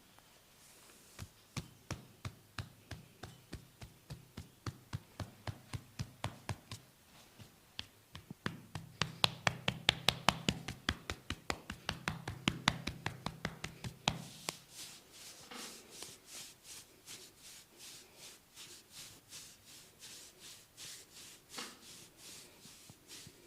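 Percussive massage with the hands: a steady run of rhythmic slaps and pats, two or three a second. They quicken and are loudest around the middle, then turn to softer, lighter pats for the last third.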